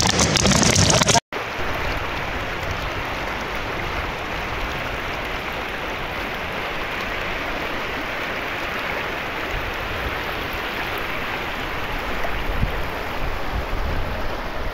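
Muddy floodwater rushing down a swollen river in spate, a steady rushing of water. A second of louder noise cuts off abruptly about a second in, just before it.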